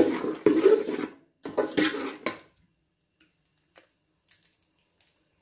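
Slotted metal spatula stirring and scraping chunky meat curry in a steel pot: two bouts of clatter in the first couple of seconds, then a few faint clicks.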